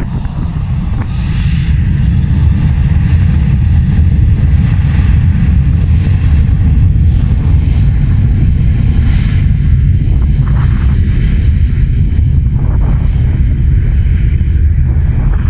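Airliner engines running loud. The sound is a heavy low rumble that swells about a second in and then holds steady.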